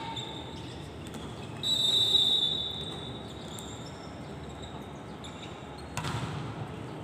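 A referee's whistle blown once for about a second, then about four seconds later a volleyball struck with a short sharp smack, over steady background noise.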